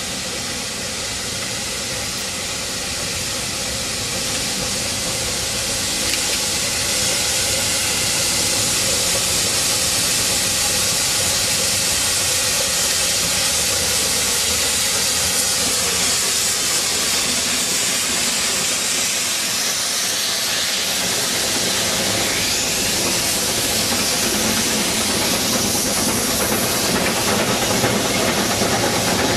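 Class B25 0-4-2 rack tank steam locomotive passing with its train, giving a loud, steady hiss of steam that grows louder about six seconds in as it draws close.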